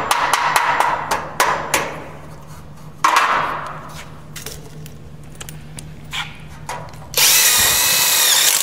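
Light hammer taps on galvanized steel framing track, with one sharper hit about three seconds in that rings briefly, then a power drill driving a screw into the steel track for about a second and a half near the end.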